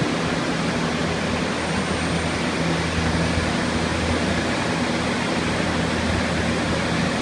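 Steady rush of air from many water-damage drying air movers and dehumidifiers running at once, with a low motor hum underneath.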